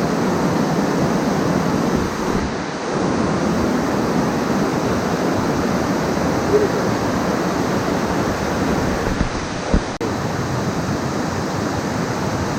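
Rushing river water, a steady loud rush, with a couple of brief knocks partway through.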